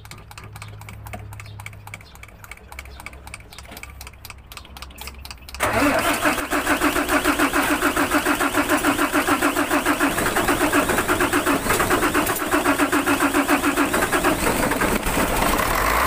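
Mitsubishi Fuso 6D24 diesel engine being started with the accelerator held down, after its fuel system has been bled on a hard-starting engine. About six seconds in it turns over loudly and runs on with an even pulsing beat of about four to five a second.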